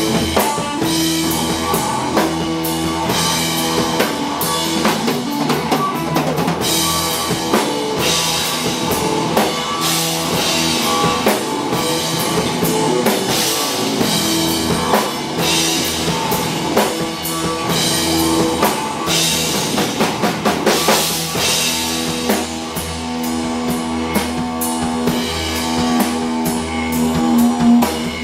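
Live rock band playing an instrumental passage: fuzz-distorted electric guitar, a Stratocaster through fuzz and Uni-Vibe effects into a Marshall amp, holding long notes over a drum kit and bass. Near the end the guitar breaks into a quick stuttering repeated note.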